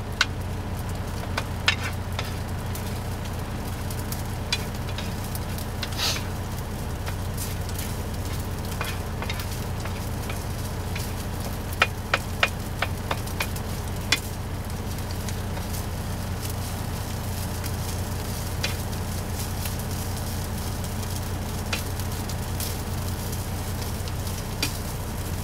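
Leftover rice sizzling as it warms in an oiled skillet, with a few sharp clicks scattered through, over a steady low hum.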